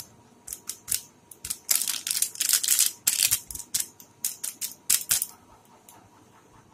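Ground spice being shaken out of its container: a run of short, dry, rattling shakes that stop a little after five seconds in.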